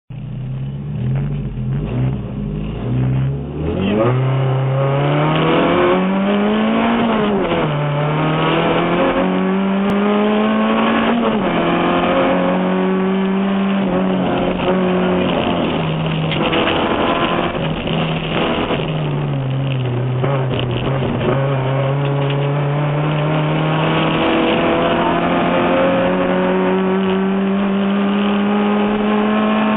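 Rally car engine heard from inside the cabin: it revs in uneven blips for the first few seconds, then launches about four seconds in. It accelerates hard up through the gears, its pitch climbing and dropping back at each upshift, and runs at high revs along the stage.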